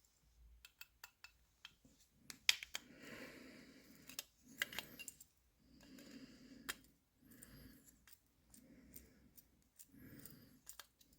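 Screwdriver working the screws out of a metal safe lock's case: a few small clicks, then repeated turning strokes about once a second, each a short grating scrape.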